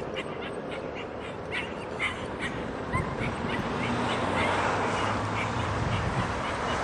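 German Shepherd puppy whimpering and yipping in short, high calls, several a second at first and sparser later. A rushing noise grows louder from about four seconds in.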